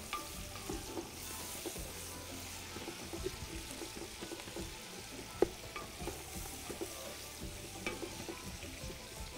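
Sliced onions frying in oil in a large metal pot, stirred with a wooden spoon: a steady sizzle with the spoon scraping and tapping against the pot, and one sharp knock about five seconds in.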